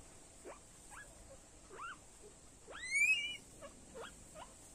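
Guinea pig squeaking while held down by hand: a string of short rising squeaks, with one loud, longer squeal about three seconds in.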